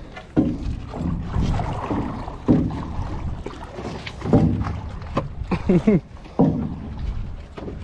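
Small wooden rowboat being handled on the water: a series of irregular knocks and thuds of wood on the hull, with water sloshing and a brief creak or groan near the end.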